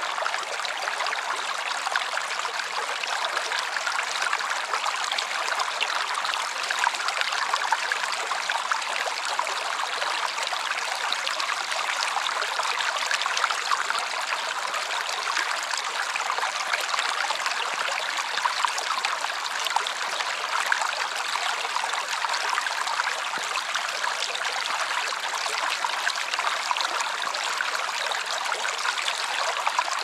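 Shallow woodland stream flowing: a steady, unbroken rush of rippling water.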